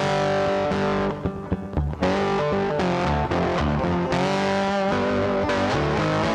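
Intro music led by electric guitar with distortion over a bass line, with a brief quieter break of separate picked notes about a second in.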